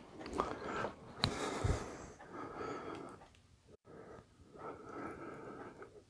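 Faint handling noises close to the microphone: a few sharp clicks and a low knock in the first two seconds, then two soft breathy hisses about a second long each.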